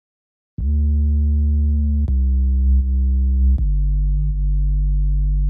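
Background music of deep, held electronic tones, starting about half a second in and moving to a new chord twice, with a click at each change.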